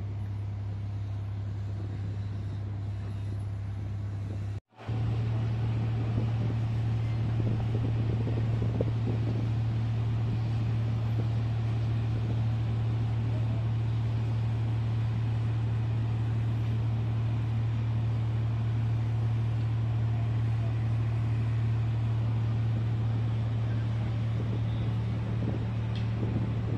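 Steady low drone of a ship's diesel machinery heard from on deck. The drone cuts out for an instant about five seconds in and comes back louder.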